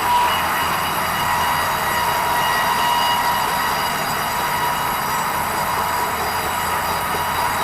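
Sawmill band saw cutting red meranti timber: a steady high whine over a dense hiss, holding even throughout.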